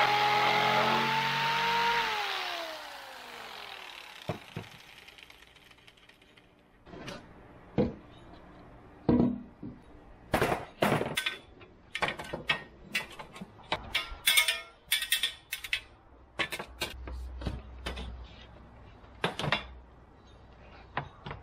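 Corded jigsaw cutting plywood, its motor winding down with a falling whine about two seconds in as the trigger is released. Then a run of separate knocks and clatters as the saw is set down on the workbench and the plywood panel is handled and laid into a metal hatch frame.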